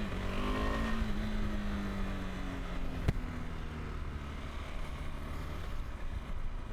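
KTM 390 Adventure's single-cylinder engine under way just after a gear change, its pitch sinking slowly and then settling lower. A single sharp click about three seconds in.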